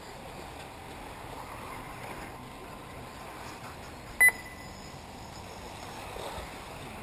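A single short, high electronic beep about four seconds in, over a steady background hiss.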